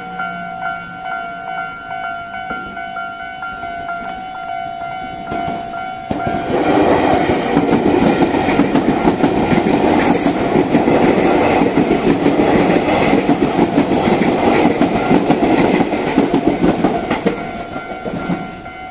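Japanese level-crossing warning bell ringing in a steady repeating ding-ding pattern. About six seconds in, a Tobu Isesaki Line train passes through the crossing, its wheels clattering over the rail joints and drowning out the bell, then fading near the end.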